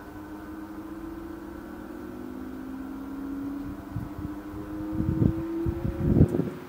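Xpelair Taurus T10 desk fan motor slowly spinning up after being switched on, its hum rising gradually in pitch. From about four seconds in, low rumbling gusts come in as its airflow hits the microphone.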